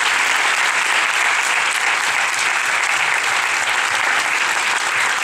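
Audience applauding, many hands clapping at once in a steady, dense wash.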